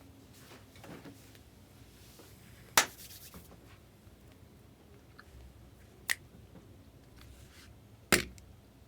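Hands handling trading-card packs and wrappers: faint rustling with three sharp clicks, about 3, 6 and 8 seconds in.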